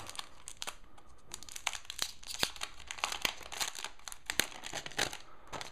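Clear plastic protective film being pulled off a new tablet, crinkling and crackling in quick irregular snaps.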